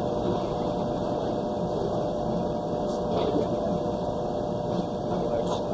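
Steady mechanical noise with a faint low hum running underneath, with no distinct strikes or changes.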